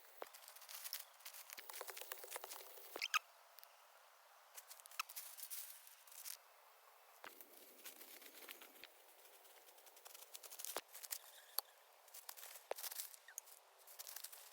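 Irregular rustling and crackling with sharp clicks and snaps, the sounds of hands working with natural materials while building a shelter. The loudest snap comes about three seconds in.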